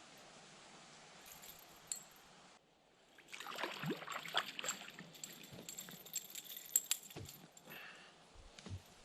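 A faint steady hiss, then about three seconds in a close run of sharp clicks and light rattles, like small hard objects or gear being handled near the microphone, thinning out near the end.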